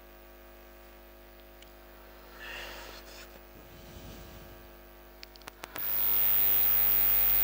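Steady electrical mains hum, faint at first; about six seconds in, a much louder steady hum and hiss sets in and holds.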